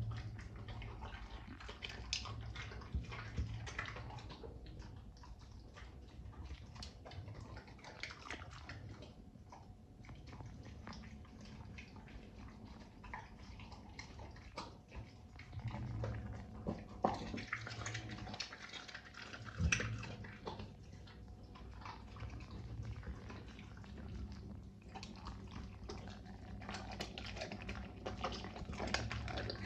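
Pit bull eating a wet, mushy mix of boiled vegetables and tripe from a bowl: irregular wet chewing, slurping and licking.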